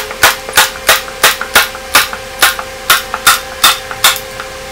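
Manual staple gun firing staples through screen-printing mesh into a wooden frame. A quick, regular run of sharp snaps, about three a second.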